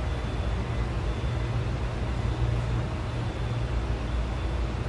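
Steady low rumble with a faint high whine.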